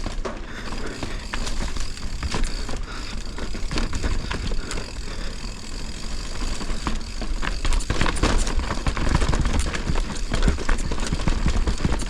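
Mountain bike descending a rough downhill trail at race pace: tyres rattling over rocks and roots with constant clatter from the bike, over a steady low rumble of wind on the microphone.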